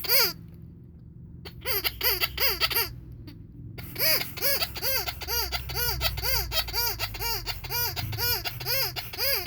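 Rubber cow squeaky toy being squeezed again and again, each squeak rising and falling in pitch. After two short pauses it squeaks steadily at about three a second.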